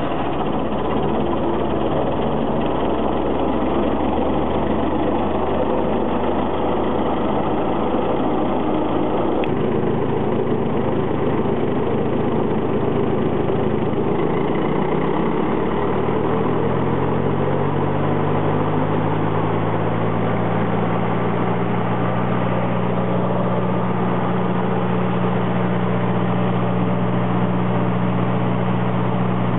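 The 37 hp Wisconsin gas engine of a 1996 Brush Bandit 90XP disc chipper, running steadily just after starting. About halfway through, the throttle is opened and the engine speeds up over a few seconds, then holds a steady higher speed.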